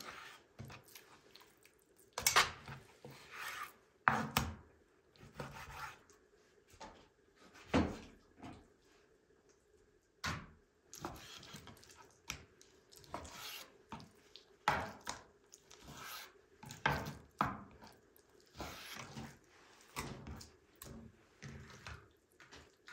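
A chef's knife slicing raw chicken breast on a wooden cutting board, the blade knocking sharply on the board at irregular intervals between shorter scraping cuts.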